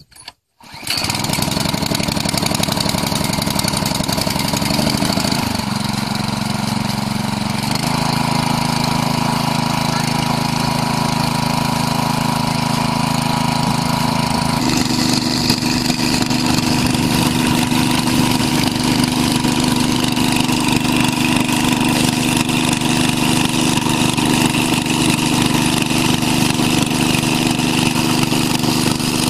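Small petrol engine of a portable water pump catching about a second in, then running steadily under load as it pumps water out through its hose. Its engine note shifts in steps a few times.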